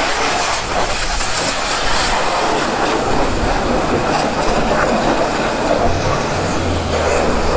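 Self-serve car wash pressure wand spraying rinse water onto a motorcycle: a loud, steady hiss of the water jet. A low hum joins in near the end.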